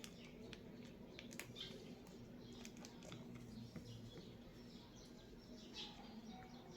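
Near silence: faint room tone with a steady low hum, scattered small clicks and a few faint high chirps.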